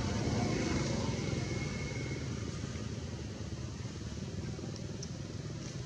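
Steady low background rumble with no clear events, a little louder in the first two seconds and then easing slightly.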